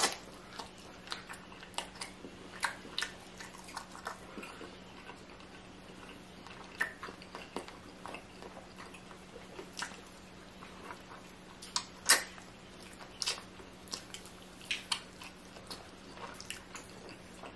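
Close-up chewing and eating sounds: irregular soft clicks and smacks of a mouth working on food, over a faint steady hum.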